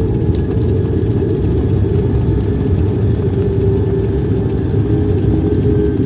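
A steady, deep rumble with a faint low hum running through it, the sound effect under an animated title intro.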